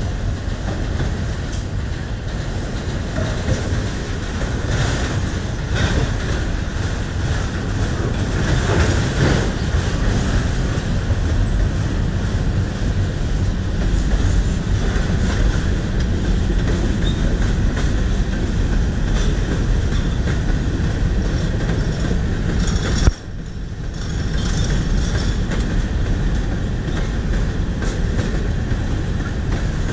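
Freight train cars, autoracks and covered hoppers, rolling past on the track with a steady rumble and wheels clicking over rail joints. The sound briefly cuts out after a short spike about three-quarters of the way through.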